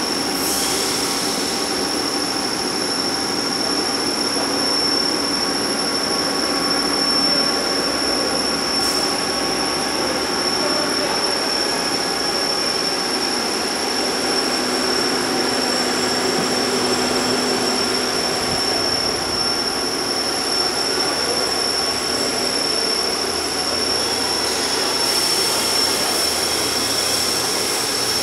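CNC gun drilling machine running: a steady mechanical noise with a constant high-pitched whine over it.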